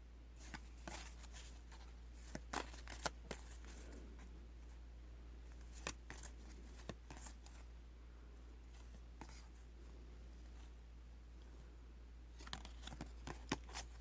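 Faint rustling and flicking of trading cards being handled and sorted, with short sharp snaps scattered through and a cluster of them near the end, over a low steady hum.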